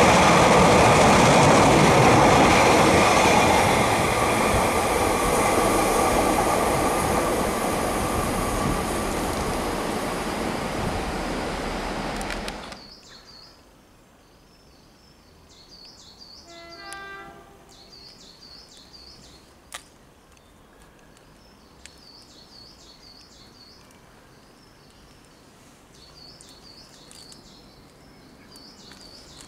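A train passing close by, a loud steady rush of wheel and rail noise that slowly eases, then cuts off abruptly about halfway. After that it is quiet, with small birds chirping in short repeated phrases.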